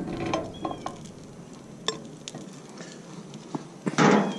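Sauce-coated chicken wings scraped out of a glass bowl onto a plate: scattered clicks, taps and wet sliding. A louder, noisy clatter comes about four seconds in.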